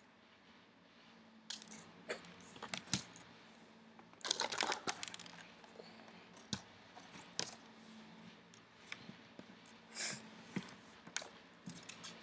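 Faint, scattered small clicks and metallic ticks of a screwdriver backing out the last screw that holds a laptop's display panel, and of the panel being handled, with a denser cluster of clicks about four seconds in.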